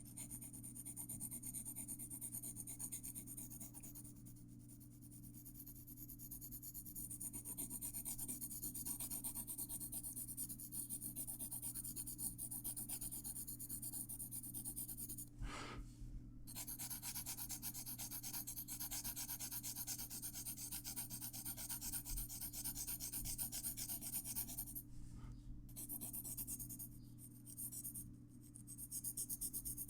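Graphite pencil shading on paper: quick, even back-and-forth strokes that stop briefly about halfway through and twice near the end. A steady low hum runs underneath.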